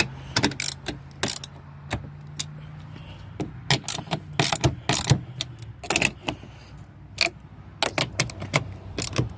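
Irregular sharp metal clicks and clinks of a socket wrench and tools tightening the 10 mm bolts that hold a truck's interior door handle.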